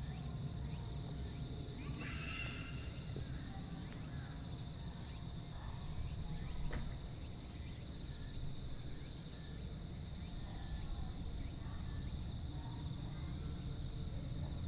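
Insects chirring steadily at several high pitches, typical of crickets on a late-summer evening, over a low rumble.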